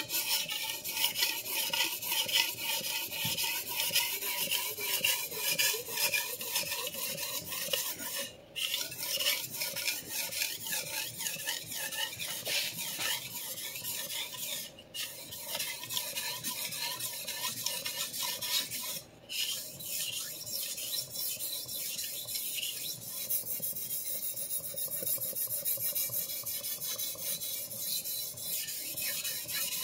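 Blade of a large vintage chef knife stroked back and forth on the 3,000-grit side of a wet combination whetstone: a steady run of gritty scraping strokes that stops briefly three times.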